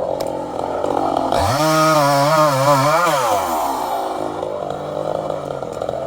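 Two-stroke chainsaw engine running, revved up sharply to high speed about a second and a half in, held there with a slight wavering for under two seconds, then let back down to a lower running speed.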